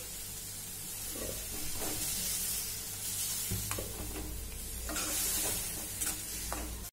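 Onion and spice masala sizzling in an aluminium kadai as cooked moong dal and tomatoes are stirred in with a steel ladle. Several sharp clinks and scrapes of the ladle against the pan come through the steady hiss.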